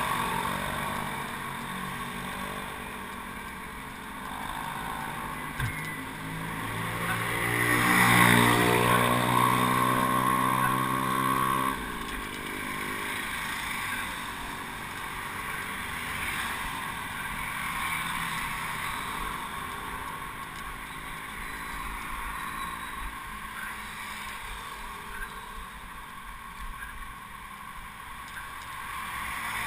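Passing motorcycle traffic heard from a bicycle: a motorcycle engine rises in pitch and grows loudest a few seconds in, then cuts off suddenly before halfway, over steady wind and road noise.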